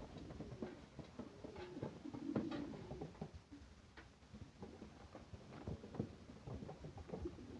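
Pigeons cooing a couple of times in the first few seconds, among many scattered light clicks and pattering.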